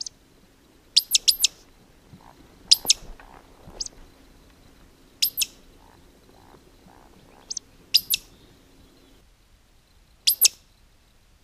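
Sharp, high woodcock-style 'tsiwick' whistles, about seven of them, several in quick pairs, spread every one to three seconds, the loudest sound by far.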